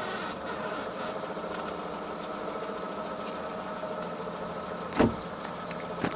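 A steady mechanical squeak that came on after rain, running as an even drone with a held tone, with a single sharp knock about five seconds in.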